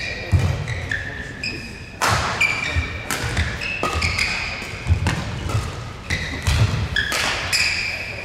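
Indoor badminton rally: many short, high shoe squeaks on the court, low thuds of feet landing, and several sharp racket strikes on the shuttlecock, the loudest about two seconds in and near the end.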